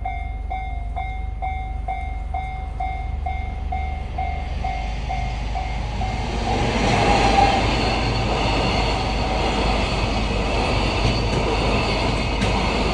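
Japanese level-crossing warning bell ringing its "kan-kan" tone about twice a second, then a train passes with a swelling rumble from about six seconds in, a few wheel clacks over the rail joints near the end.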